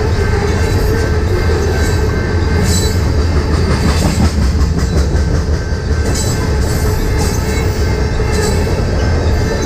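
Tank cars of a freight oil train rolling past close by: a steady heavy rumble of steel wheels on rail, with scattered clicks and clanks as the wheels pass over rail joints.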